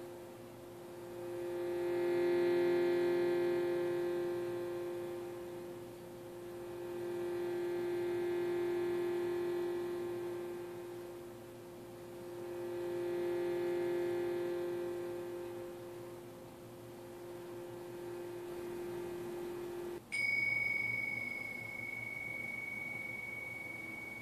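Tibetan singing bowl sung by rubbing around its rim: one steady ringing tone with many overtones that swells and fades about every five to six seconds. About twenty seconds in it is damped to a stop and a pair of tingshas is struck once, giving a single high, long ring.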